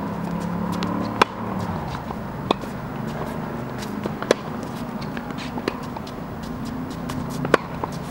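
Tennis ball struck by a racket and bouncing on a hard court: sharp single cracks spaced a second or more apart, the loudest about a second in, around four seconds and near the end, over a steady low background.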